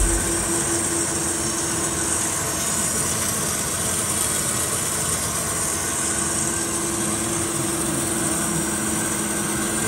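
Hyd-Mech 23A horizontal bandsaw running with its blade turning: a steady mechanical hum with a held mid-pitched tone and a high hiss. A short thump comes right at the start.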